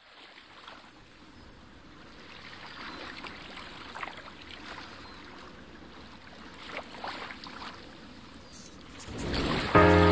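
Shallow seawater lapping and splashing, faint at first and slowly growing louder, with a few small splashes. About nine seconds in a rising swell leads into loud music that starts just before the end.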